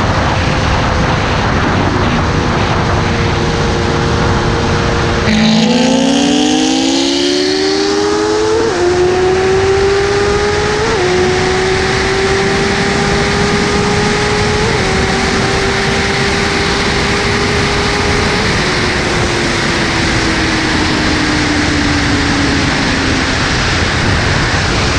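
Kawasaki ZX-10R's inline-four engine at a steady cruise, then opening up hard about five seconds in: the pitch climbs steeply with brief dips at three upshifts a few seconds apart. It then holds high and falls slowly in the last few seconds. Loud wind rush over the microphone throughout.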